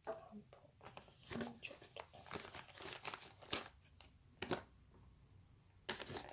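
Thin plastic meat tray and its film crinkling and crackling in irregular spurts as pork mince is pulled out and dropped into a bowl, with a quieter pause near the end before another loud crackle.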